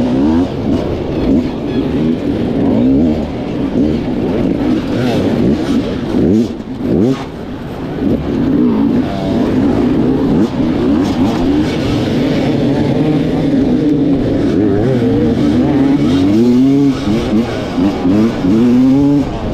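Dirt bike engine revving up and down in quick throttle blips, with several sharp rises in pitch near the end.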